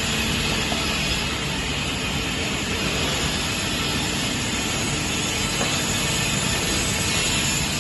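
Twin-spindle vertical multi-rip circular saw machine running, its motors and spinning saw blades making a steady, even mechanical noise that does not change in pitch or level.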